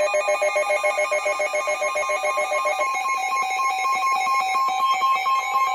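NOAA Weather Radio alert tone: a loud electronic trill of rapidly pulsing tones, about eight to ten a second, that steps up in pitch about three seconds in over a steady high beep. It signals that a severe thunderstorm warning broadcast is about to follow.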